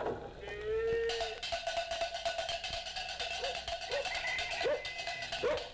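Musical cue from a children's story record: a short gliding note, then a held note with short rising squeaks repeating through the second half.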